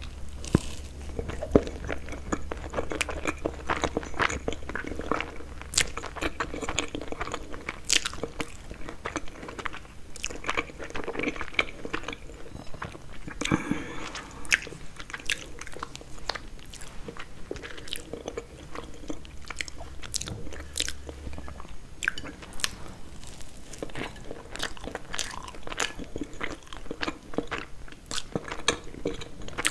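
Close-miked biting and chewing of Napoleon cake: the flaky puff-pastry layers and crumb topping crunch and crackle in many sharp little bursts between softer, moist chewing.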